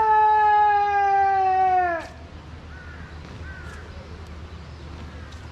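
A drill commander's drawn-out shouted word of command, held on one high pitch for about two seconds, then dropping away.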